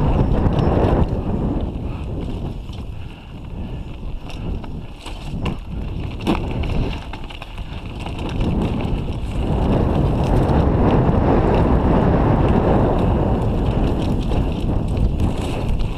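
Mountain bike rolling fast down a dirt and rock trail, with wind buffeting the bike-mounted camera's microphone over the rattle of the tyres. The noise drops for a few seconds in the middle, where a few sharp knocks stand out, then comes back loud from about ten seconds in.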